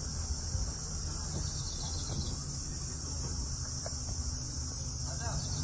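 A steady high-pitched drone of insects in chorus, unbroken throughout, over a continuous low rumble.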